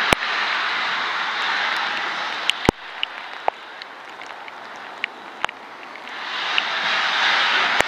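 LNER K4 steam locomotive 61994 The Great Marquess pulling away, a loud hiss of steam that fades over the first few seconds and swells again near the end. A few sharp clicks cut through it.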